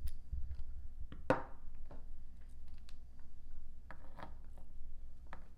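Scattered light clicks and taps of small metal parts and a tool being handled on a plastic work board while the Kythera's trigger assembly is taken apart, with one sharper tap about a second in.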